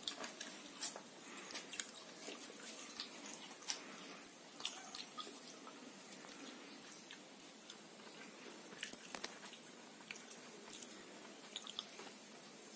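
Faint crunching and chewing of fried banana stem pakoda: scattered soft crackles and clicks.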